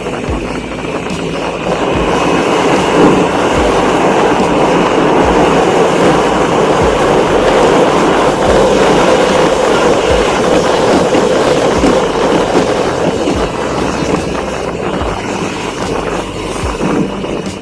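Loud, steady rumble of a vehicle in motion, with scattered low thuds, swelling about two seconds in and easing off near the end.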